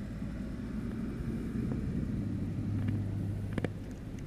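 A pickup truck passing on a road, a low rumble that swells about two and a half to three seconds in and then eases off. A couple of sharp clicks come near the end.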